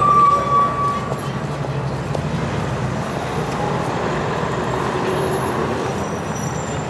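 Busy city street traffic: a steady wash of vehicle engines and tyres, with a brief high squeal at the start and a vehicle passing close by in the middle.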